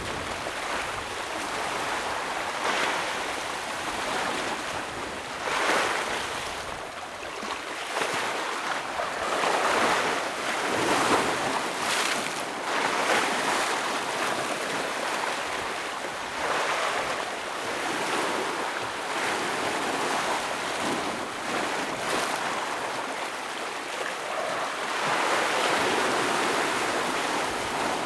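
Ocean waves breaking and washing over rocks, a continuous surf noise that swells and eases irregularly, with stronger surges every few seconds.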